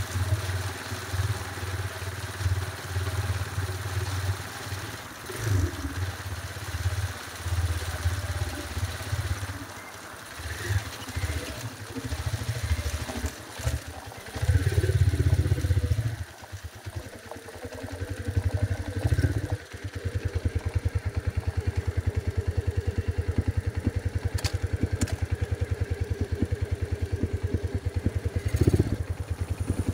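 Motorcycle engine running while riding, its sound rising and falling unevenly, then settling into a steady, even putter about two-thirds of the way through.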